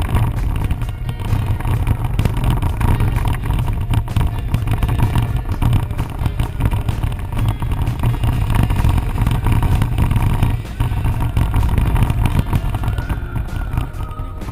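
Jeep Wrangler driving slowly over a rough dirt track: a steady low rumble of engine and road noise with irregular jolts, picked up by a camera mounted on the hood.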